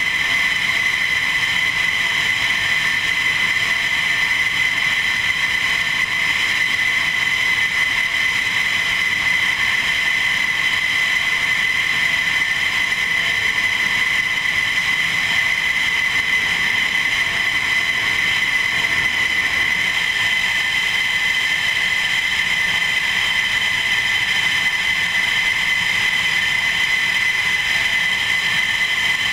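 F-16 Fighting Falcon jet engines running at taxi power: a steady, high-pitched turbine whine over a hiss, holding unchanged throughout.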